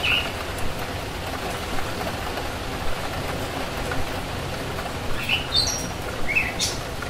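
Steady hiss of rain, with short high-pitched bird calls that slide downward, once at the start and several times about five to seven seconds in.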